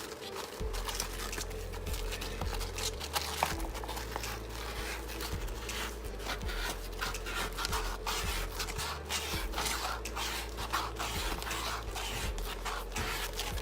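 Hands working on small parts: repeated scraping, rubbing and clicking, over a steady low hum that drops out briefly a few times.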